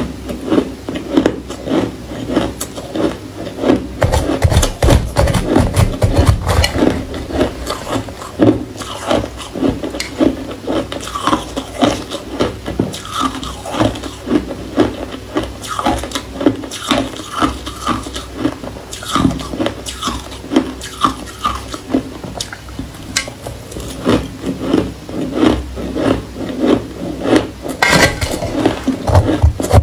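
Shaved ice being chewed close to the microphone: a loud, dense run of fast crunches and crackles. Near the end a metal spoon scrapes through the ice in a stainless steel pot.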